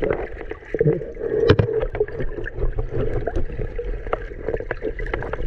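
Muffled underwater water noise heard through a submerged camera housing: churning and gurgling with scattered small knocks and clicks.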